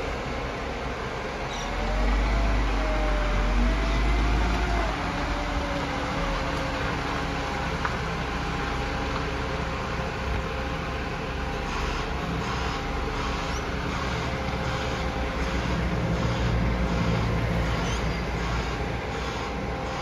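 Diesel engine of an Iveco side-loader garbage truck running as the truck manoeuvres slowly. It has a deep rumble that swells louder for a few seconds about two seconds in.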